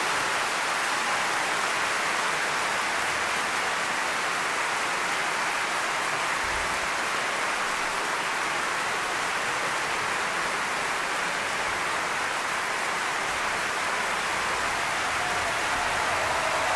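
A large concert audience applauding: steady, dense clapping.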